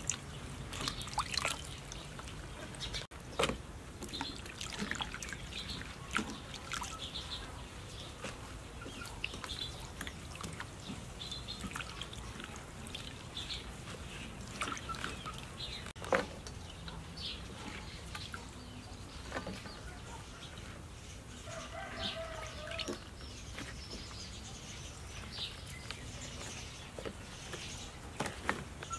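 Water splashing and dripping as vegetables are rinsed by hand in a steel bowl and lifted out dripping, in a run of short irregular splashes. A bird or hen calls now and then in the background.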